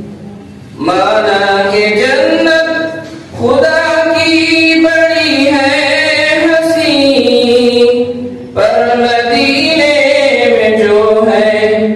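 Unaccompanied melodic chanting by a voice, sung in long gliding phrases with short breath pauses between them.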